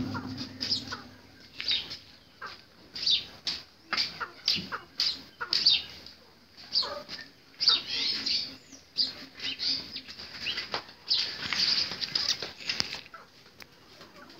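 Caged birds chirping and flapping: a quick, irregular run of short, high chirps and wing flutters, thickest about eight seconds in and again around eleven to thirteen seconds in.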